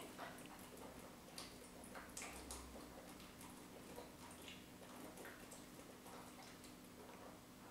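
Near silence: a man chugging malt liquor straight from the bottle, with faint irregular gulps over a low steady hum.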